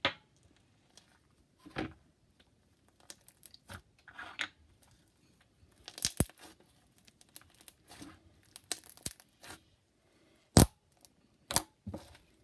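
Hands working a batch of glue slime, kneading and stretching it to mix in metallic pigment, making irregular sticky crackles, squishes and pops; one sharp pop about two-thirds of the way in is the loudest.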